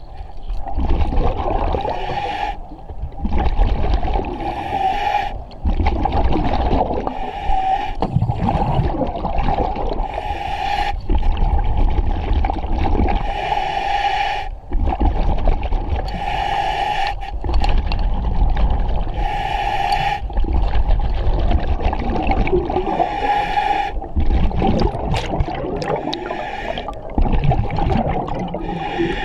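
A diver breathing underwater through a demand regulator: a hissing inhale and a bubbling exhale, one breath every three seconds or so.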